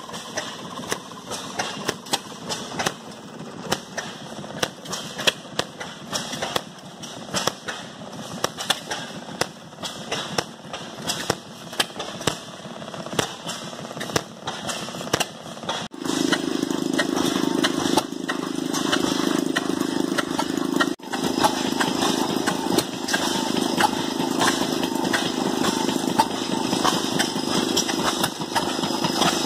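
Small antique stationary gas engines running, their exhausts firing in sharp, irregular pops. About 16 seconds in, a steadier and louder engine hum joins and carries on under the pops.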